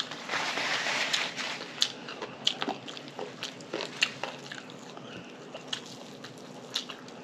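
Close-up eating sounds: a noisy bite or crunch in the first second and a half, then chewing with scattered wet clicks and smacks.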